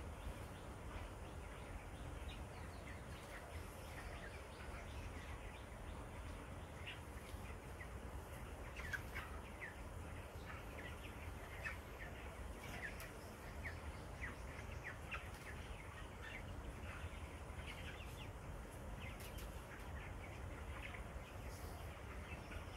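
A flock of young broiler chickens peeping, many short falling chirps overlapping one another, over a steady low rumble.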